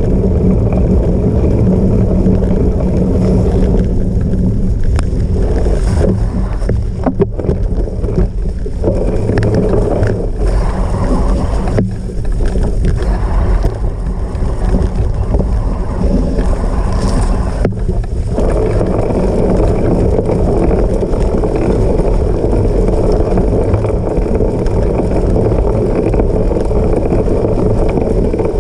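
Steady rumble of wind on the microphone and tyres rolling over rough ground while a cyclocross bike is ridden at race pace, with a few short knocks and rattles between about six and eighteen seconds in.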